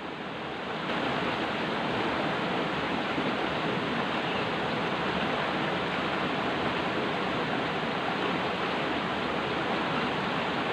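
Steady rush of a small river cascade pouring over rocks, a little quieter for the first second.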